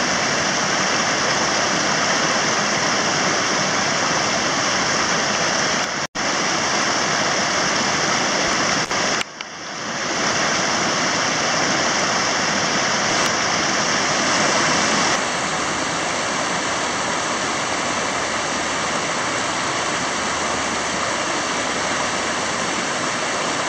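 Mountain stream rushing over rocks: a steady, dense roar of running water. It is broken by two brief dropouts, about six and nine seconds in.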